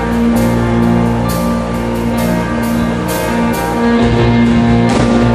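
Instrumental passage of a song with no singing: held chords over a drum beat that hits about once a second. The low end fills out about four seconds in.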